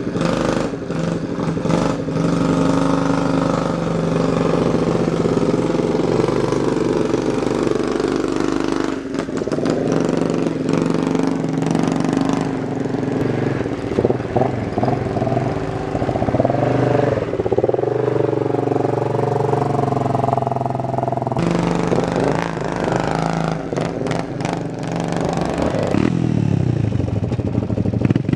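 Straight-piped 110cc Chinese quad's small single-cylinder four-stroke engine running loud and unmuffled, revving up and down as it is worked through deep mud.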